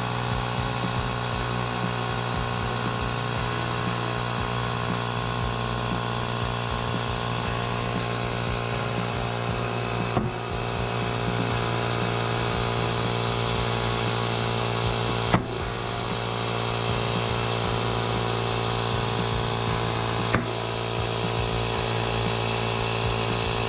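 Ryobi cordless air pump running steadily as it inflates a tubeless mountain bike tire, a constant motor hum. Three sharp snaps come about 10, 15 and 20 seconds in.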